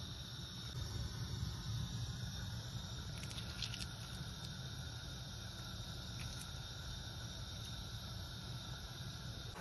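Steady low hum of background noise, with a few faint light clicks about three and a half seconds in.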